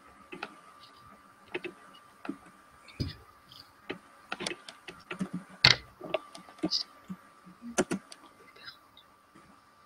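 Irregular clicks, taps and knocks of handling and movement close to a computer microphone, over a faint steady high tone; the loudest knock comes a little after halfway.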